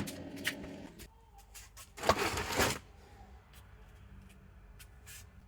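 Household handling noises: a sharp knock at the start, then a brief rustling scrape about two seconds in, with a few faint clicks afterwards.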